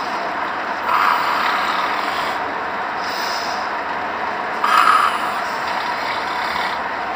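Snoring: a rough, rasping breath recurring about every two seconds, strongest about a second in and again near five seconds, over a steady hiss.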